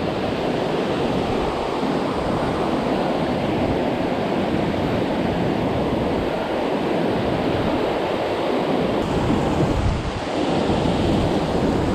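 Waterfall rushing, a steady loud wash of falling water.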